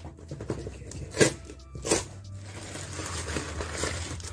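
Plastic shipping packaging being torn open and crinkled by hand, with two short, loud rips about a second apart.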